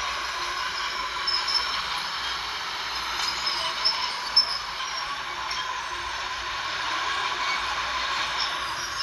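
Crawler bulldozer working: a steady run of engine and steel-track noise with high squeaks. A few sharp clanks come through, the loudest about four seconds in.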